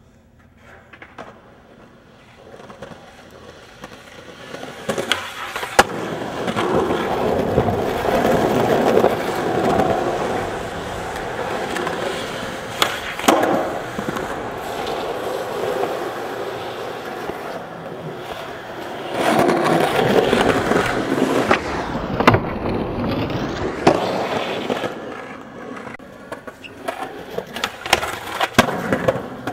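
Skateboard wheels rolling on concrete, swelling as the board picks up speed. Sharp clacks of the board popping and landing come several times, with a cluster near the end.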